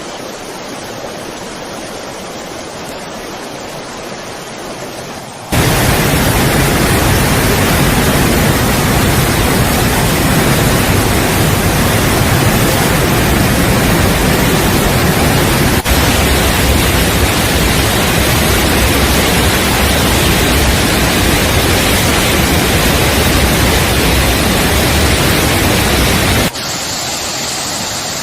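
Steady rush of fast-flowing floodwater, with no voices. The sound jumps to a much louder, deeper rush about five seconds in and drops back to a thinner rush near the end.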